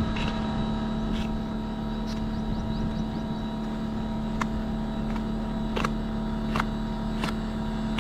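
LG inverter split AC outdoor unit running at full speed with a steady hum during a pump-down: the small liquid valve is shut and the compressor is drawing the refrigerant back into the outdoor unit. Several sharp metal clicks come from the hex key working the service valve.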